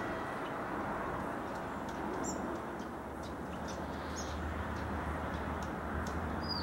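TGM4 diesel-hydraulic shunting locomotive's engine running as it creeps along at low speed, its low drone growing stronger about halfway through. A few short bird chirps sound over it.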